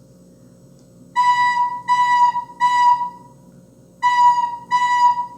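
Soprano recorder playing the note B in short, evenly spaced notes: three notes, a rest of about a second, then three more. It is a three-beats-and-a-rest drum rhythm.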